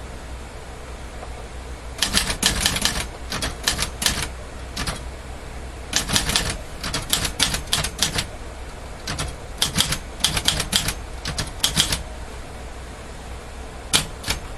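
Olivetti Dora manual typewriter being typed on: runs of quick keystrokes, its typebars striking the platen, with short pauses between runs. The typing starts about two seconds in and ends with two lone strikes near the end.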